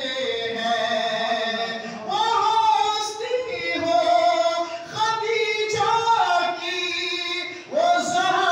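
A man singing a manqabat (devotional Urdu praise poem) unaccompanied into a microphone, in long held, ornamented notes with a brief breath between phrases of a couple of seconds each.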